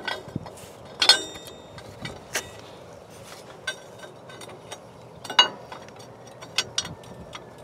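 Steel U-bolts and their plate clinking and knocking against each other and the spring as they are fitted over a leaf spring. There is a sharp ringing metal clank about a second in, a second one past the middle, and lighter clicks between.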